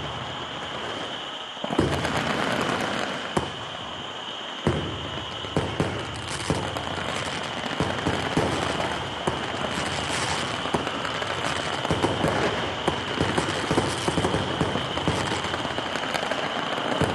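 Stadium fireworks display: a dense crackle of pyrotechnics with many sharp bangs, growing thicker about two seconds in and again near five seconds.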